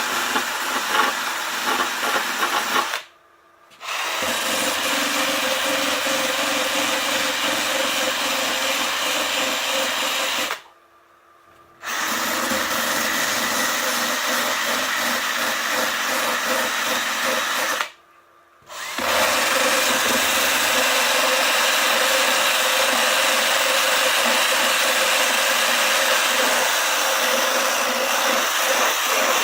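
Electric drill running with a bit, grinding out cured expanding-glue foam. It stops three times for about a second each and starts again. After the last restart it runs steadier and a little louder.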